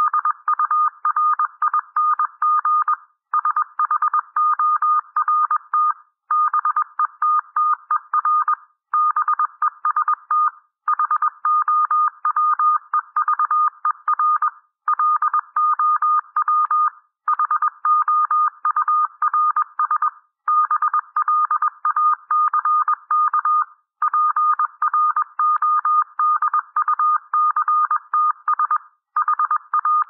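Computer-generated Morse code (CW) at about 21 words per minute: a single steady-pitched beep keyed in rapid dots and dashes, sending a run of common English words with a short pause between each word.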